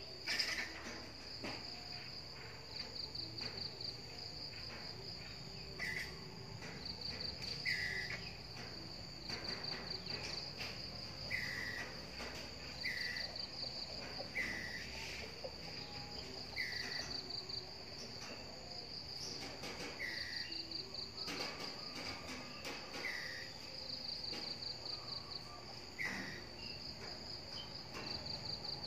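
A squirrel giving a short alarm call over and over, one call every one to two seconds, over a steady high trilling of insects that pulses in short runs.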